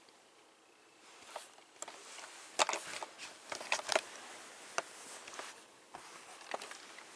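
Plastic toy truck and parts being handled: irregular clicks, taps and short scrapes, busiest in the middle.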